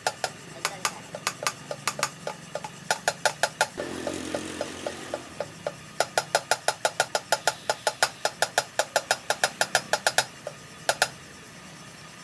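A hammer striking metal, each blow ringing briefly at a clear pitch. The blows come irregularly at first, then in fast runs of about five a second, and end with a last pair near the end.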